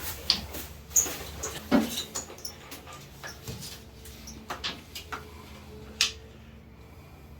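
Scattered light clicks and knocks of tools and materials being handled, about a dozen over several seconds, over a faint steady hum.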